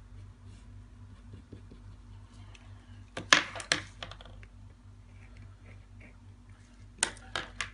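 Sharp plastic clicks and taps of a protractor and pens being handled and set down on a clipboard and desk, in a short cluster about three seconds in and another near the end. A faint steady hum runs underneath.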